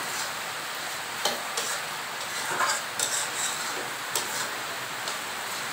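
Metal spatula stirring and scraping a thick dry-fish and potato bhuna in a metal karahi, with scattered clicks and scrapes against the pan over a steady sizzle of frying. The dish is being fried down dry and stirred so the spices don't stick to the bottom.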